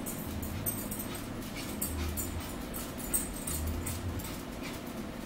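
Cutlery clinking against plates during a meal, a string of short metallic ticks with some ringing, over a low hum that comes and goes.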